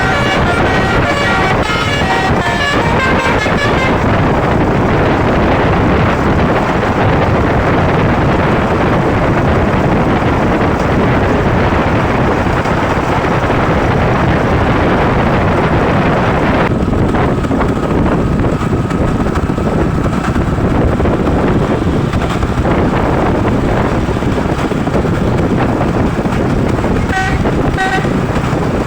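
Bus telolet basuri horn playing a quick tune of stepped notes for the first few seconds and again briefly near the end, over loud, steady road and wind noise.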